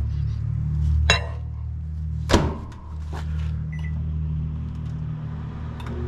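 GE microwave oven being loaded and set: a light clink about a second in, the door shut with a sharp clack a little over two seconds in, then a single keypad beep, over a steady low hum.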